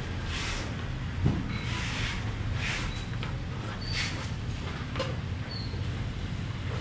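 Knife cutting peeled fruit on a plastic cutting board: short scraping slices about once a second and one sharp tap of the blade on the board, over a steady low hum.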